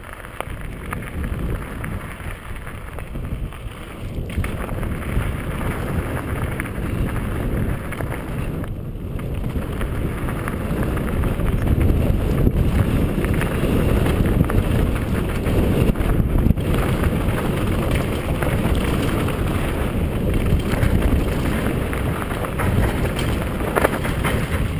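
Mountain bike rolling fast downhill over loose gravel: tyres crunching and rattling over stones, with wind rushing over the camera microphone. It grows louder about halfway through.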